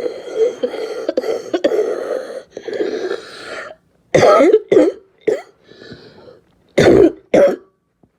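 A person's harsh barking cough: a drawn-out moaning voice, then three sharp coughs about four seconds in and two more near the end.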